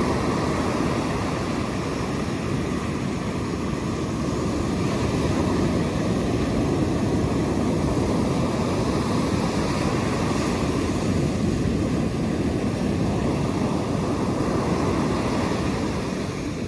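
Ocean surf breaking and washing up a sandy beach: a steady rushing wash of waves.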